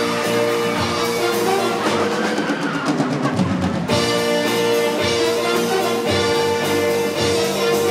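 A live show-choir band, led by drum kit with brass, plays upbeat music with steady held notes and regular drum hits. There is a short break near the middle before the full band comes back in.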